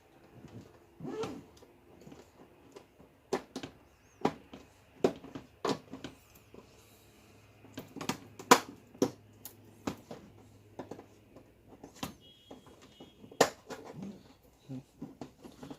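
Irregular sharp clicks and knocks of a plastic TV frame being pressed and snapped into its locking clips, the loudest about eight and a half seconds in and again about thirteen seconds in.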